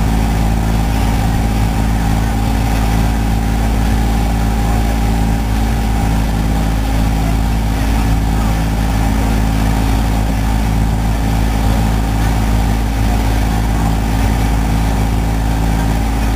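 Small ferry boat's engine running steadily under way, an even drone that holds at one pitch, with a steady hiss over it.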